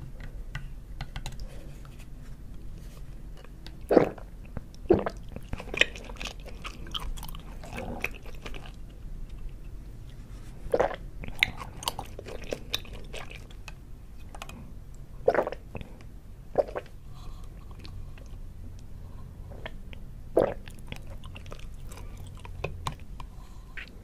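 Close-miked bubble tea eating sounds: plastic straws stirring and knocking in round plastic cups, sips through the straw, and chewing of tapioca pearls and popping boba. The sound is a run of small clicks, with about seven sharp, loud clicks scattered through it.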